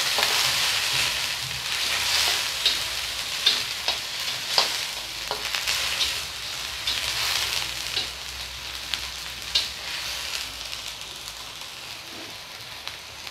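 Onions, garlic and whole spices sizzling in mustard oil in a wok just after a splash of water, loudest at the start and slowly dying down. A spatula scrapes and clicks against the pan as the mix is stirred.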